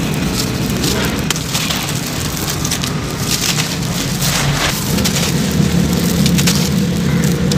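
Hands crushing lumps of damp sand-cement mix and letting gritty crumbs and gravel fall into a basin: a dense crackle of small grains hitting the pile. A steady low hum runs underneath and gets louder about five seconds in.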